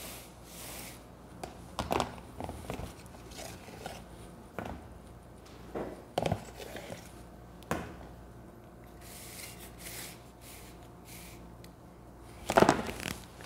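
Metal cake spatula scraping and tapping against a plastic container and the cake plate while spreading frosting: soft scrapes with a few sharp clicks a couple of seconds apart, and a louder clatter of knocks near the end.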